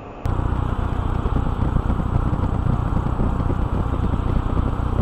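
Steady rumble of road and tyre noise from a car driving on a rain-wet highway, heard from inside the car through a dashcam. It starts abruptly a moment in.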